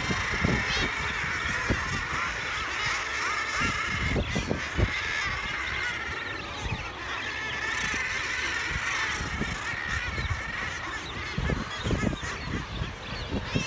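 A dense seabird breeding colony calling without a break: thousands of common guillemots, with kittiwakes among them, make a continuous overlapping din of growls and cries. Low bumps of wind on the microphone come and go.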